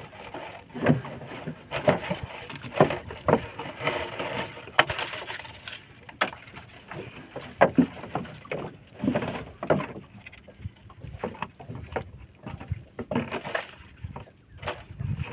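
Irregular knocks and clatter as a collapsible net crab trap is shaken out over a plastic tub, with crabs and fish dropping into the tub and the netting rustling.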